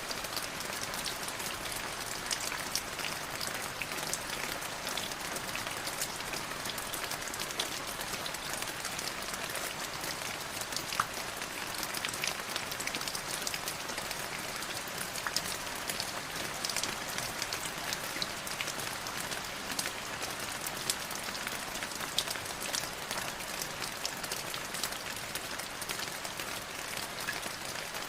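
Light drizzle: a steady hiss of rain with many small, sharp raindrop ticks scattered irregularly through it.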